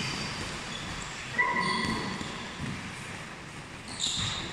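Boxing sparring in a ring: a punch landing with a sharp thud about a second and a half in, followed by short high squeaks, like shoes twisting on the ring canvas, and another brief squeak near the end.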